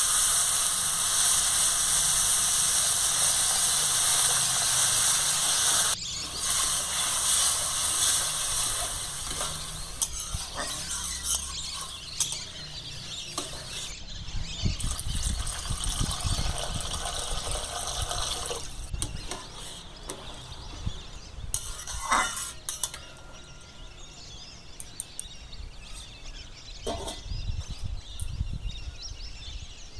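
Water poured into a hot steel wok of dry-roasted moong dal, hissing loudly as it turns to steam. The hiss drops off suddenly after about six seconds and fades into a quieter bubbling, with a couple of sharp metal clinks near the end.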